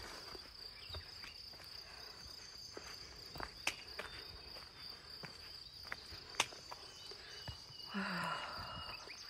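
Steady high-pitched drone of insects in summer woodland, with scattered footsteps on a rocky dirt trail. A brief, louder breathy sound comes near the end.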